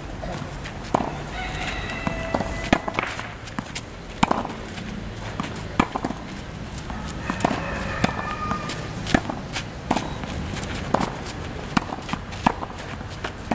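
Tennis balls being struck by rackets and bouncing on the court: irregular sharp knocks, about one every second or two.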